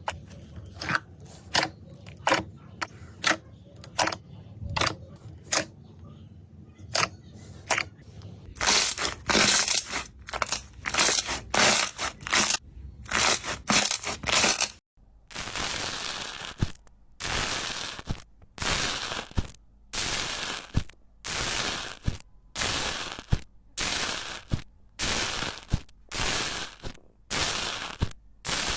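Slime being worked by hand: a run of short, sharp pops several times a second, then louder squishing bursts from about nine seconds in, and after a short break near the middle, steady presses about once a second.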